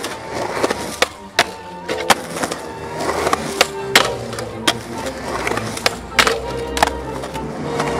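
Skateboard wheels rolling on concrete, with a dozen or so sharp clacks of the board popping, hitting the coping and landing. Music plays underneath.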